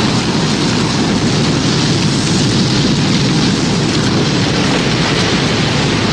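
Tornado storm sound effect: a loud, steady roar of wind and heavy rain with no break and no siren tone.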